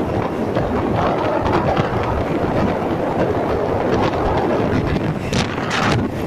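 Wind rushing over the microphone of a moving motorcycle, with road and engine noise underneath and a couple of sharper gusts near the end.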